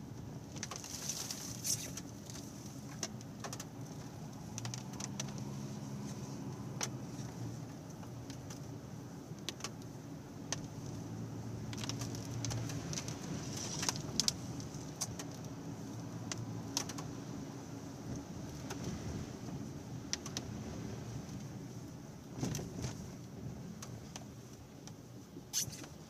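Car engine and road noise heard from inside the cabin while driving slowly, a low hum, with scattered light clicks and rattles throughout.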